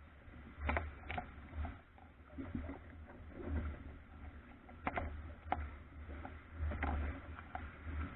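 Albacore sailing dinghy's hull slapping and splashing through choppy waves, with low wind rumble on the microphone and a few sharp irregular knocks of water against the boat.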